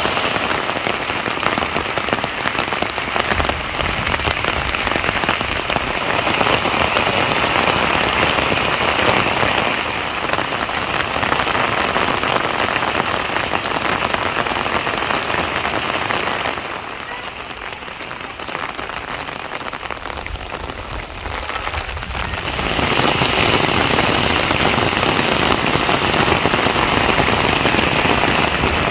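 Rain falling steadily. It drops quieter for about five seconds past the middle, then comes back louder.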